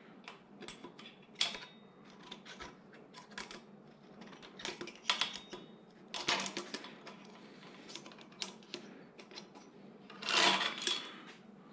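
Claw pickup tool clicking and scraping against metal inside a Harley-Davidson Dyna fork tube while trying to grab the fork spring: a string of irregular light clicks and taps, with a louder rattling cluster about ten seconds in.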